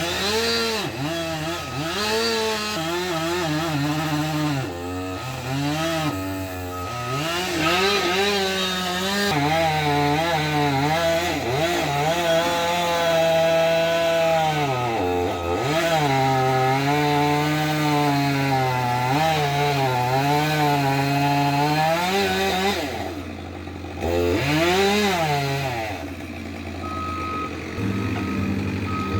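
Chainsaw cutting trees, its engine pitch rising and falling as it revs and bogs in the wood, dropping off sharply twice, over a steady low hum.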